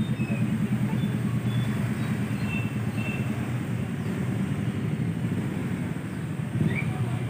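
Steady low rumble of street traffic, with a few faint short high chirps scattered through it.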